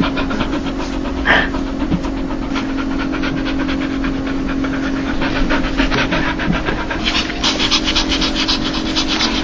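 A dog panting quickly and steadily, the short breathy huffs dogs make when excited and happy, with a brief higher sound about a second in. A steady low hum runs underneath.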